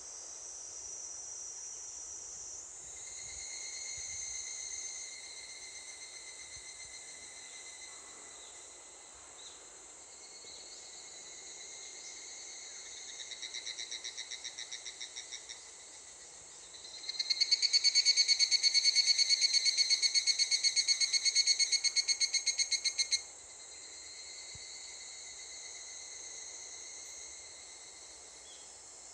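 Evening cicadas (higurashi, Tanna japonensis) calling: a steady ringing chorus in the background, with a softer rapidly pulsing call around halfway through and one nearby cicada starting up loud about 17 seconds in, trilling for about six seconds and stopping abruptly.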